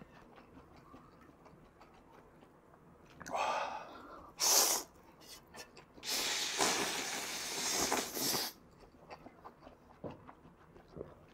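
Ramyeon noodles slurped loudly from chopsticks: a short slurp about three seconds in, a sharp hissing one soon after, and a long slurp of a couple of seconds from about six seconds. Soft chewing and mouth clicks fill the gaps.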